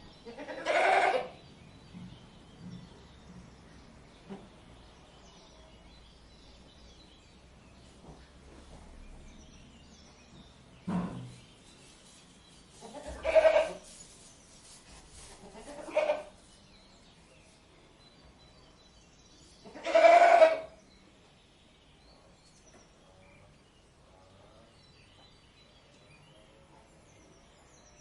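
A goat bleating: about five separate calls spread several seconds apart, the loudest near the end, with faint background noise between them.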